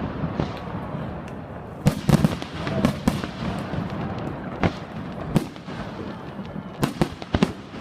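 Fireworks display: sharp bangs of bursting shells, several in quick clusters about two seconds in and again near the end, over a steady background noise.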